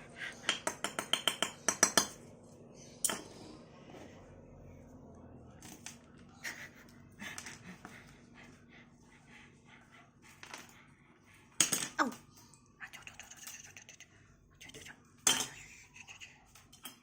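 Small hard objects clicking and clinking: a quick run of about ten sharp clicks in the first two seconds, then scattered single clicks and knocks, as items are picked up and dropped during a tame lory's fetch-and-discard play.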